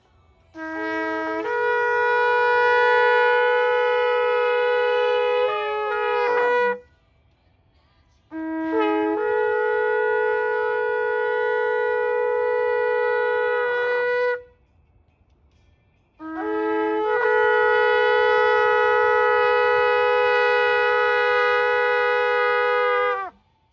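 Three long shofar blasts with short pauses between them. Each blast opens on a lower note, jumps up to a held higher note, and bends down as it ends.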